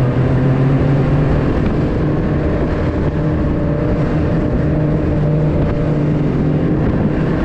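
Snowmobile engine running steadily at cruising speed while the machine travels across snow, with a steady, unbroken hum.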